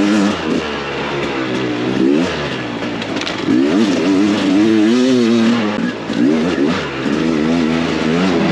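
Beta 300RR two-stroke dirt bike engine being ridden hard, revving up and down over and over as the throttle is opened and closed.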